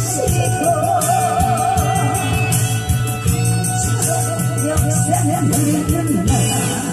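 Loud amplified music from a pumba stage show: a melody warbling with wide vibrato over a steady drum beat.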